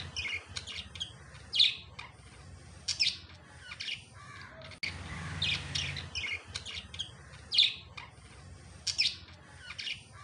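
Small birds chirping in short, sharp high calls, scattered irregularly over a faint low hum.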